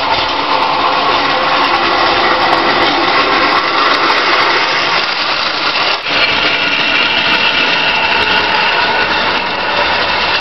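Old Hornby tinplate toy train running on metal track, a steady loud rattle and rumble of wheels on the rails, with a wagon passing close about six seconds in.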